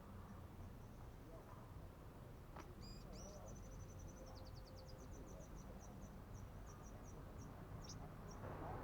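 Sunbird singing a thin, high twittering song: a quick run of high chips beginning about two and a half seconds in, slowing into spaced single notes toward the end, over a faint low background rumble.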